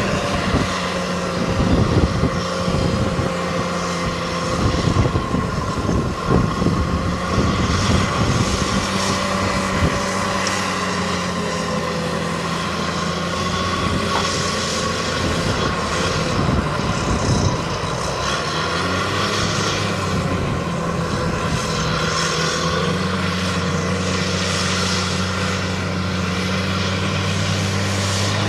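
Diesel engines of a wheel loader and a tractor working a corn silage pile, a steady drone whose pitch shifts as they push and compact the silage. Uneven knocks and thumps through roughly the first ten seconds, and one engine's pitch rises about two-thirds of the way in.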